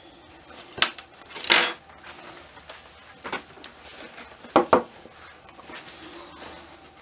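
Hard clacks and knocks from a ball-jointed doll's jointed limbs as it is handled and laid down on a desk mat. There are a handful of separate clacks, with two quick ones close together past the middle.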